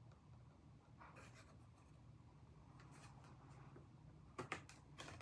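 Near silence with faint rustling of a paper picture book being handled as pages are turned and flaps lifted, and a few soft clicks near the end.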